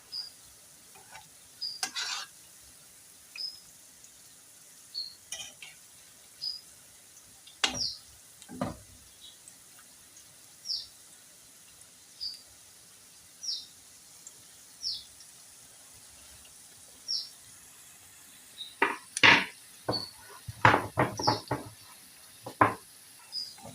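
A spatula knocks and scrapes against a frying pan as frying food is turned, over faint sizzling, with a busier burst of clattering near the end. A bird repeats a short, high, falling chirp every second or two.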